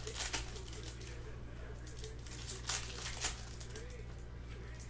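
Foil trading-card pack wrappers from a 2020 Topps Chrome baseball blaster crinkling and tearing as they are ripped open by hand, in short sharp bursts just after the start and twice around three seconds in, over a steady low hum.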